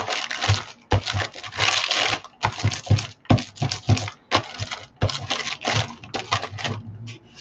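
A hand brayer rolled back and forth over a painted journal page in short strokes, about a dozen in all, each a rasping rumble of the roller on the paper.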